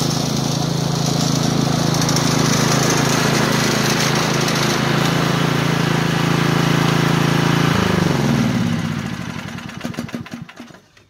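Troy-Bilt TB30R riding mower's single-cylinder Briggs & Stratton engine running steadily on a test run after a blade belt replacement. About eight seconds in it is switched off, and its pitch falls as it winds down and dies.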